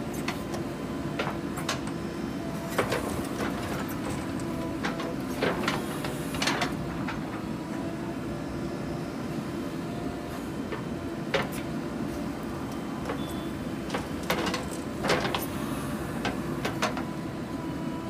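JCB 3DX backhoe loader's diesel engine running steadily while the backhoe digs soil, with scattered sharp clanks and knocks from the bucket and arm.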